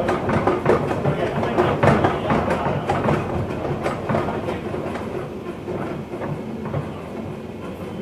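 Electric train running along the track, heard from the driver's cab: a steady rumble of wheels on rail with irregular clattering clicks, getting a little quieter over the second half.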